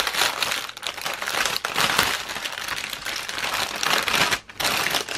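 Clear plastic bag crinkling as hands open it and draw out a bundle of embroidery floss, with a brief pause about four and a half seconds in.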